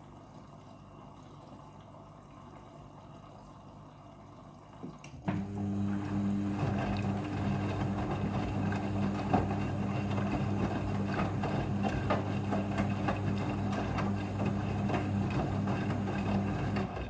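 Front-loading washing machine rinsing: a low hum for the first few seconds, then about five seconds in the drum motor starts turning with a steady hum while water and clothes slosh and patter in the tumbling drum. The motor stops just before the end.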